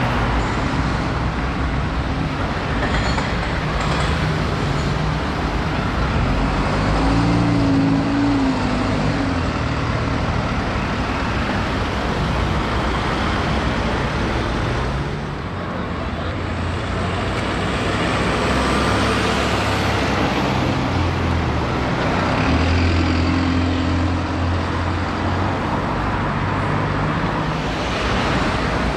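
Busy road traffic with the diesel engine of an Alexander Dennis Enviro 200 single-deck bus running and pulling away, its engine note rising and falling, over the noise of passing cars and a lorry.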